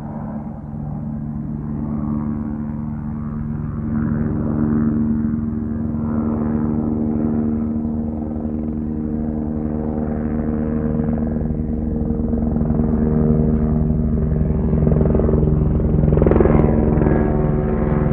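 Helicopter flying: a steady engine drone over fast rotor-blade chop, growing gradually louder.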